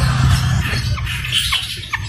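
Harsh, squawking bird calls over a steady low hum and background noise.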